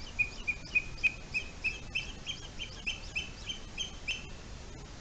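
Booted eagle calling: a rapid run of about fourteen short, high notes, a little over three a second, rising slightly in pitch and stopping about four seconds in.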